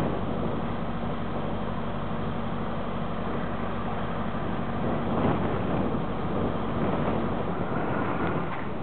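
Truck engine running steadily at low revs far off across an open yard, with wind noise on the microphone; the lowest rumble eases about three-quarters of the way through.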